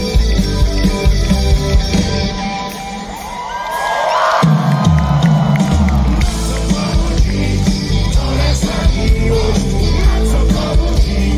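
Live rock band playing loud through a stage PA: electric guitars, bass, drums and keyboard with a lead singer. About two seconds in, the bass and drums drop away briefly, and the full band comes crashing back in about halfway through.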